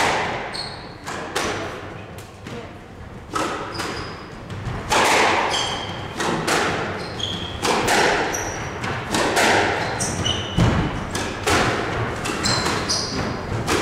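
Squash rally: the ball is struck by rackets and smacks off the court walls again and again, every half second to a second, with the hits echoing. Shoes squeak briefly on the wooden floor between shots.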